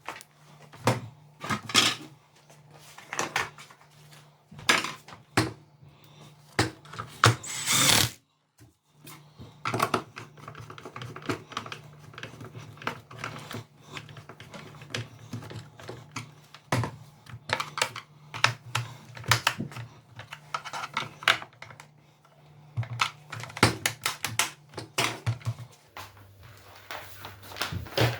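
Irregular clicks, knocks and rattles of the carpet cleaner's plastic parts being handled and fitted back together after a belt and drive shaft replacement, with a longer scrape about eight seconds in. A steady low hum runs underneath.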